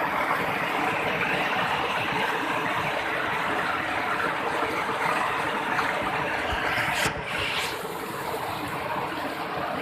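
Steady rushing roar of a mountain waterfall. Just after seven seconds in it dips briefly and then runs on a little quieter.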